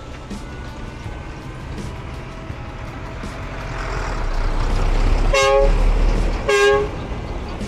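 A motor vehicle approaching and passing close, its engine and road noise rising to a peak, with two short horn toots a little over a second apart near the end.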